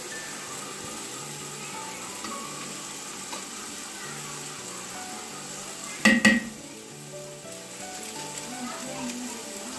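Mutton biryani masala bubbling and sizzling in a large aluminium pot while a perforated metal ladle stirs it. About six seconds in come two sharp clanks, the loudest sounds here.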